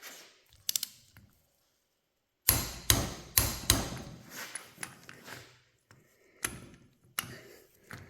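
Tools and metal parts clanking against a John Deere 4020 hydraulic pump during reassembly: a few light clicks, a short pause, then a run of sharp metal knocks about two and a half seconds in, with two more knocks near the end.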